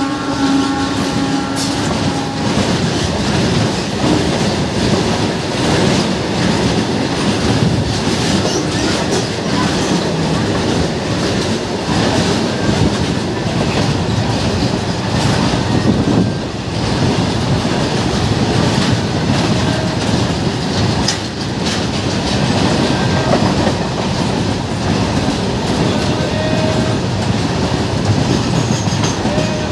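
A goods train's covered freight wagons rolling past close on the next track: a loud, steady rumble with the clickety-clack of wheels over rail joints. A horn, already sounding as the wagons pass, stops about two seconds in.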